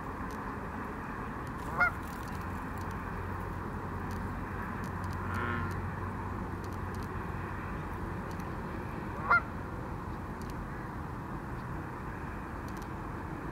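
Canada goose honking: two short, loud, upward-gliding honks about seven seconds apart, with a fainter call between them, over steady background noise.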